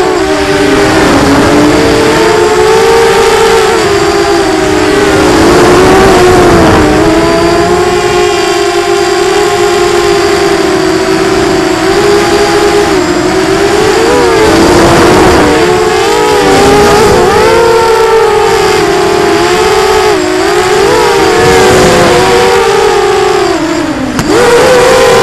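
Racing quadcopter's motors and propellers whining loudly, heard from the quad's onboard camera. The pitch rises and falls with the throttle throughout, dips briefly near the end, and then jumps back up.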